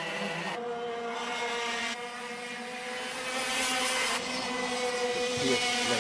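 Racing karts' 125cc two-stroke engines running at speed: a steady high drone, with a rising note as one accelerates near the end.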